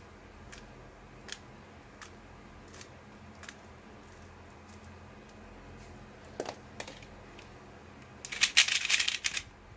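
Plastic 3x3 puzzle-cube layers being turned: single light clicks about every three-quarters of a second, then near the end a quick, louder run of clacking turns as an algorithm is done at speed.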